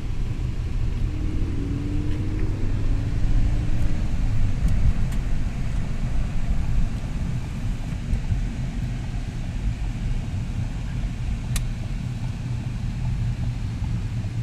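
Inside the cabin of a moving Ford Focus ST: steady low rumble from its turbocharged four-cylinder engine and the tyres on the road, louder in the first half and easing off later. A single sharp click sounds near the end.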